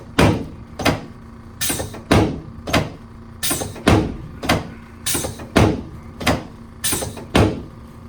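A steady run of sharp, loud thumps from a chiropractic treatment on the table, about one every half second or so, each with a short ring after it.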